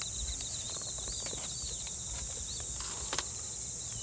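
Steady, high-pitched trilling of a summer evening insect chorus, with quick repeated chirping calls over it and a low rumble beneath. A single sharp click comes about three seconds in.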